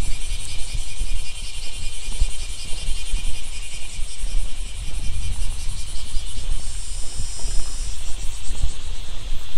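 Chorus of summer insects calling over the rice fields: a dense, high, pulsing trill, with another high buzz strengthening about six and a half seconds in. Underneath runs a low, uneven rumble that is louder than the insects.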